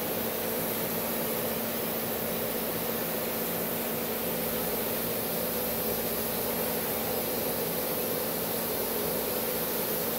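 Multipro Cut 120 plasma cutter running with air flowing through its torch: a steady hiss over a low hum, unchanging throughout.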